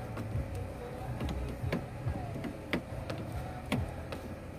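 Faint sharp clicks, about one a second, over a steady low rumble.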